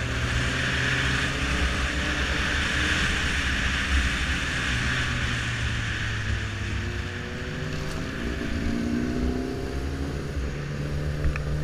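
Sport motorcycle engine running while riding at city speed, with wind rushing past, strongest in the first half. In the last few seconds the engine note rises and falls as the throttle changes.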